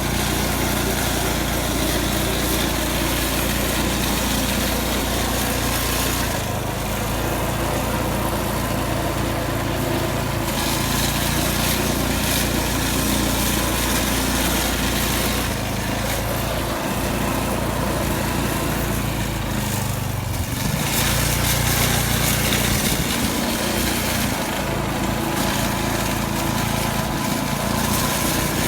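Small petrol engine of a snowblower running steadily, its pitch and level shifting a little as it works through the snow.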